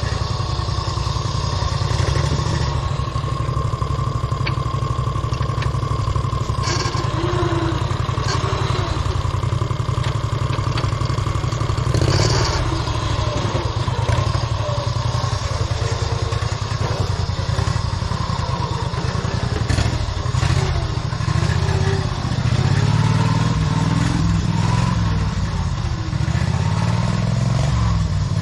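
Tractor engine running steadily, its note rising and falling several times near the end, with a few sharp knocks along the way.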